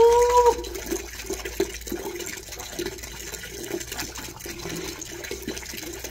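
Water splashing and gurgling as a wet dog is washed with a hose and water scooped from a basin, with many short bubbly splashes. A brief vocal sound comes at the very start, and it is the loudest moment.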